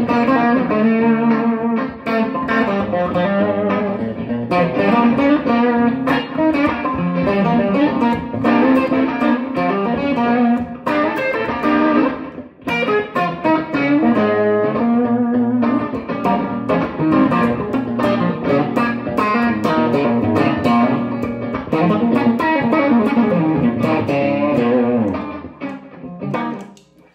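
Electric guitar playing blues lines and chords, with a short break about halfway through. The playing stops a little before the end.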